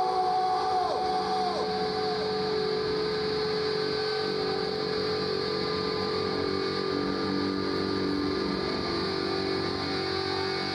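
Steady drone of electric guitar amplifiers hum-feeding back on stage, several held tones over crowd noise. A wavering higher tone dies away within the first two seconds.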